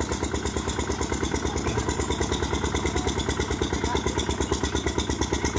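Small farm tractor engine chugging steadily with an even, rapid beat as it pulls a loaded trailer through floodwater.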